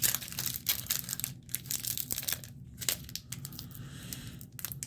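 Rapid, irregular crinkling and crackling of a Pokémon card booster pack's foil wrapper being handled.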